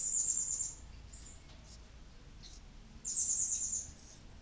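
Marker pen squeaking across a white drawing surface as lines are drawn, in two high, fast-chattering strokes: one right at the start and another about three seconds in, each lasting under a second.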